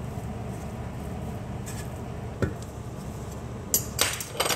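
Wooden spoon stirring cooked rice in a metal pot: a single knock, then a quick cluster of knocks and scrapes against the pot near the end, over a steady low hum.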